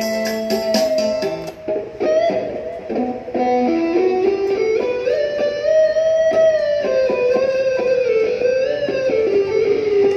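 Electric guitar playing a dangdut lead melody, with long held notes that slide and bend in pitch.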